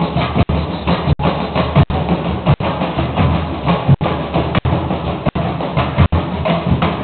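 A live drum group playing loud, steady percussion: pounding bass drums with snare and sharp wood-block-like clicks. The sound is broken by very short gaps about every 0.7 seconds.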